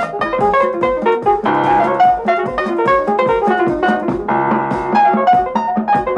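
Lively piano music score playing quick runs of notes, with held chords about a second and a half in and again past four seconds.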